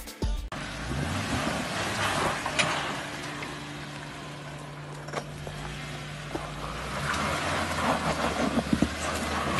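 Lifted Jeep Wrangler's engine running steadily at low revs as it crawls over a rock ledge, with occasional sharp knocks of tyres and underside on rock, several of them near the end.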